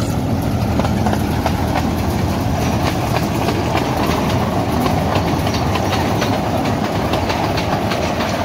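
Small park train's open passenger cars rolling past on their rails, a steady rumble with the wheels clicking again and again on the track.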